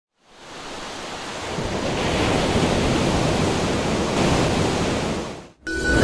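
Ocean surf: a steady wash of waves that fades in over the first two seconds and cuts off suddenly about five and a half seconds in.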